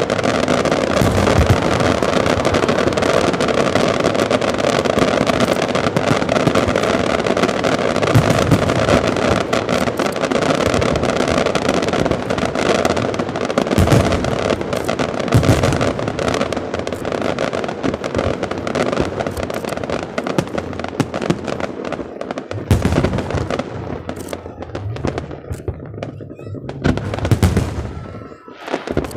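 Aerial fireworks display: a dense, continuous crackle of bursting shells with deep thumps. About 22 seconds in it thins into scattered bangs, then dies away near the end.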